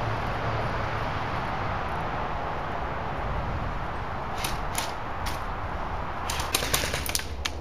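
Scattered sharp snaps of airsoft gunfire over a steady background hiss: a few single shots about halfway through, then a quicker run of shots near the end.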